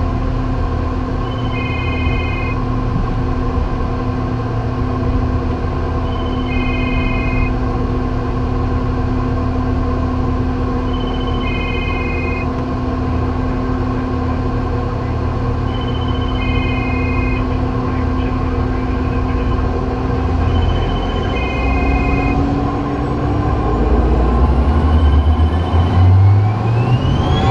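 Cessna Citation Sovereign's rear-mounted turbofan engines whining steadily at taxi power, then spooling up with a rising whine over the last few seconds as thrust comes up for the takeoff roll. A short electronic tone repeats about every five seconds over the engine sound.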